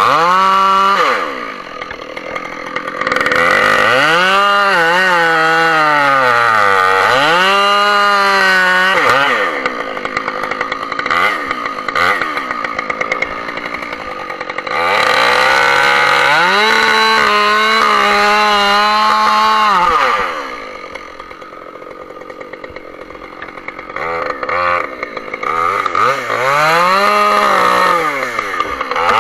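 Husqvarna 572 XP G two-stroke chainsaw cutting into a tree trunk. It runs at full throttle in long bursts and drops back toward idle three times between them.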